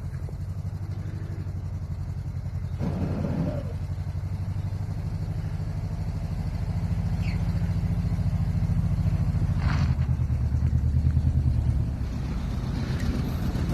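Lowered van's engine running steadily at low revs with an even, low drone, joined a few times by short hissing or scraping noises.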